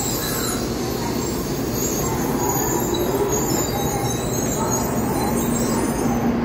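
N700-series Shinkansen train pulling slowly out along the platform on an out-of-service run, a steady running noise of its wheels on the rails and its traction equipment.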